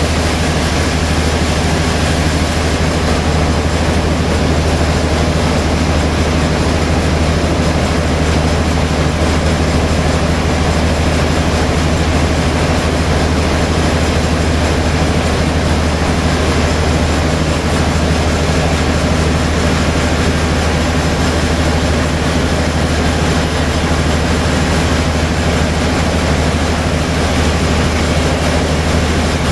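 Large sawmill band saw running steadily, with a deep even hum beneath a continuous wash of machine noise.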